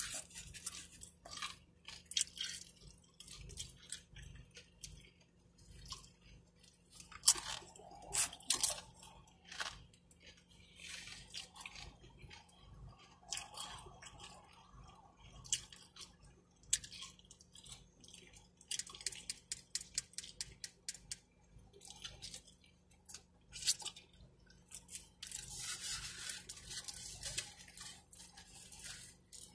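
Close-up eating sounds of a person chewing a burrito: irregular wet smacks and mouth clicks, with a longer rustle near the end.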